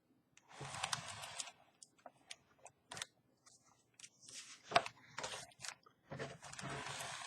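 Pages of a picture book being turned and handled: three paper rustles of about a second each, with small clicks and taps between them.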